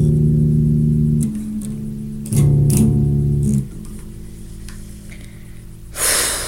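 Four-string electric bass guitar played freestyle: plucked notes ring out in two loud phrases, the second ending about three and a half seconds in, followed by a quieter held note. Near the end there is a brief burst of rustling noise.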